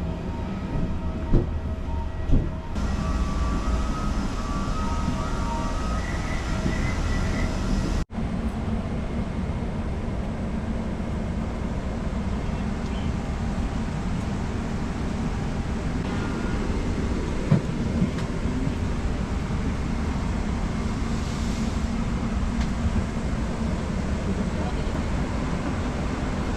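Steady low rumble of airliner cabin noise, with a couple of sharp knocks in the first few seconds and another about halfway through. The sound cuts out for an instant about eight seconds in.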